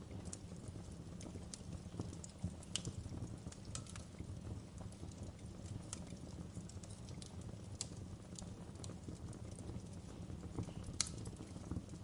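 Wood fire crackling: irregular sharp pops and snaps from burning logs and embers over a low, steady rumble, with one louder pop near the end.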